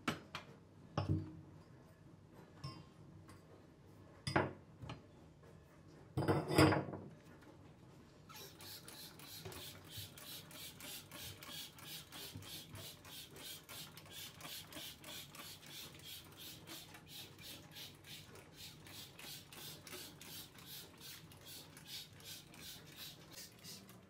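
Metal gas-hob burner grates lifted off and set down with a few clanks, then a trigger spray bottle squirting cleaner over the stovetop in a long, even run of quick squirts, several a second.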